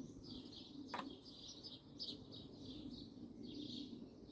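Faint background birdsong, short chirps repeating throughout, with a single sharp click about a second in.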